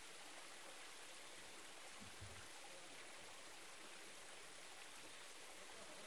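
Faint, steady trickle of a shallow mountain stream running thinly over bare rock, its flow reduced to a trickle by drought. A soft low bump about two seconds in.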